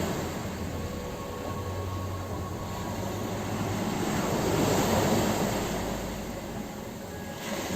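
Ocean surf: waves washing onto a shore, a swell building to a peak about five seconds in and then easing back.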